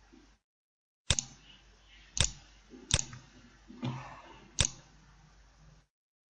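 Four sharp computer mouse clicks at uneven intervals, about a second apart, as points of a spline are placed in CAD software.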